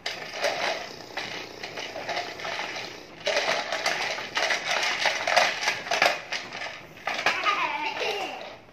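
Handheld stick vacuum cleaner running, a harsh rattling noise that switches on sharply and gets louder about three seconds in. Near the end its pitch falls as the motor winds down, and it cuts off.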